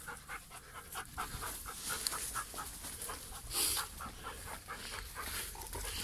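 A dog panting fast and evenly, about five breaths a second, with a brief rustle a little past halfway.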